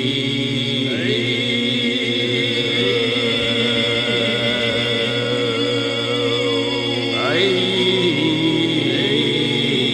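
Background music: sustained, droning chant-like vocal and synth tones with a few rising sweeps.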